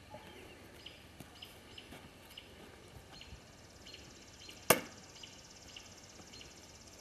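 A thrown tomahawk striking its target: one sharp, loud thunk about two-thirds of the way in. Faint chirps throughout, with a steady high buzz starting near the middle.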